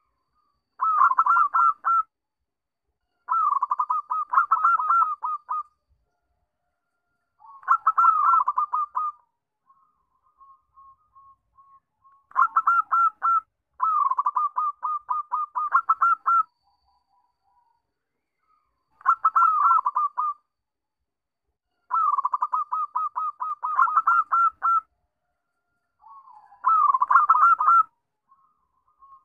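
Zebra dove (perkutut) singing: about eight phrases, each a rapid run of short coos lasting a second or two, with pauses between and a few faint soft notes in the gaps.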